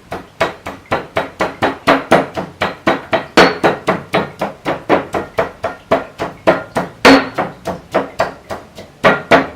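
Pestle pounding garlic and fresh chilies in a mortar: a steady run of knocks, about four a second, crushing them coarsely to bring out their juices.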